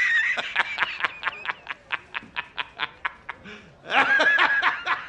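The J. Jonah Jameson laughing meme: a man laughing hard, a high shrill cry, then a fast run of short 'ha' sounds about six a second, and another shrill cry about four seconds in.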